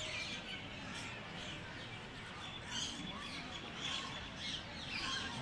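Many birds chirping and calling at once in a busy, continuous chorus of short high calls.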